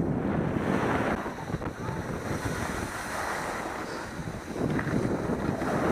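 Wind buffeting the microphone with a steady rushing noise, easing a little about two-thirds of the way through and swelling again near the end.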